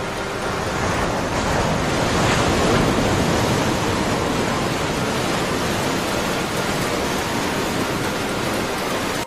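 Small, gentle waves washing in over a sandy shore, heard as a steady rushing noise, with wind on the microphone.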